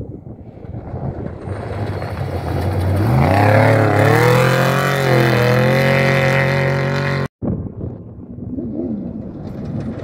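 Off-road race vehicle engine approaching at speed and growing louder, its pitch rising as it accelerates about three seconds in and holding high; it cuts off suddenly just past seven seconds, after which another race engine is heard revving up and down.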